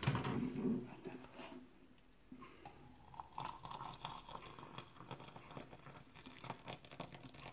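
Water poured from a stovetop kettle into a ceramic mug: a splashing trickle from about two and a half seconds in. A brief louder clatter of handling comes in the first second.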